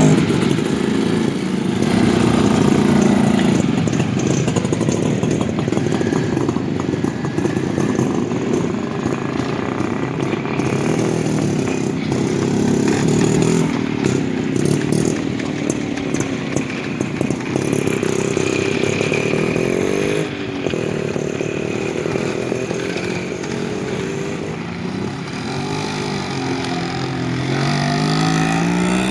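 Classic two-stroke motorcycles such as a Yezdi, a Jawa and a Yamaha RX running and revving as they pull away one after another, their engine pitch rising with each getaway several times over.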